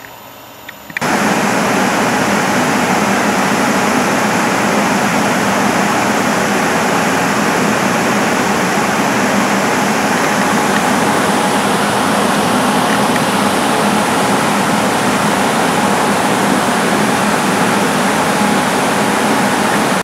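High-speed fan running flat out, blowing air through a water-to-air radiator: a loud, steady rush of air that starts suddenly about a second in. The air velocity is high enough to blow the condensation off the sweating radiator.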